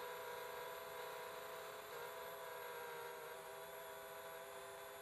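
Faint steady hum made of several held tones at fixed pitch, growing slightly quieter toward the end.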